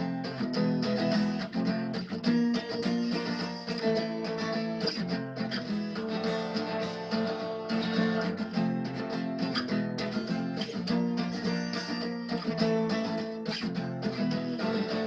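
Acoustic guitar strummed in a steady rhythm, playing an instrumental interlude with no singing. The chord progression is Em, G–F#–G, C, Bm–G–F#.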